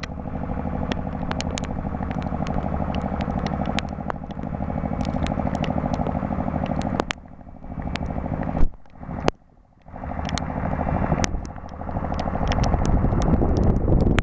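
Heavy-haulage truck's diesel engine running steadily as it hauls a low-loader past, a low even drone. It drops out briefly about nine seconds in, then comes back.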